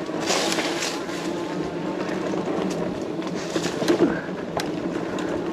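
Mokwheel Upland Plus fat-tire electric bike riding along a dirt trail: a steady mix of tire and drive noise with wind on the microphone, and a sharp click about four and a half seconds in.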